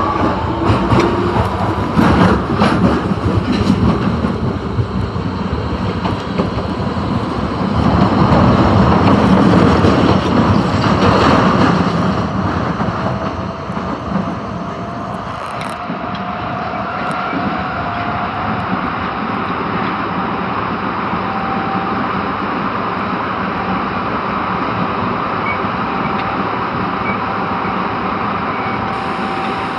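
Osaka Metro Tanimachi Line 22 series subway car running between stations: rumbling rail noise with a thin, slowly rising whine from the traction motors. The rail noise grows louder for a few seconds, then drops to a steadier run.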